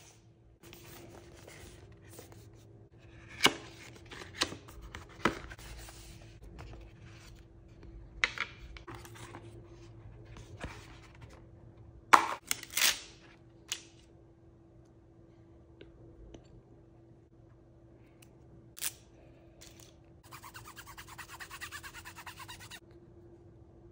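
Unboxing sounds from a Sony Xperia 1 V's paper-and-cardboard retail box being handled: a series of sharp taps, clicks and scrapes as the box is slid open and the phone lifted from its tray, the loudest a cluster about halfway through. Near the end come a couple of seconds of steady rustling as paper or plastic packaging is pulled out, over a faint steady hum.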